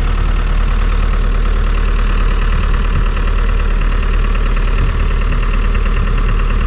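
Gehl skid-steer loader's engine running at a steady idle, an even low hum with no change in speed.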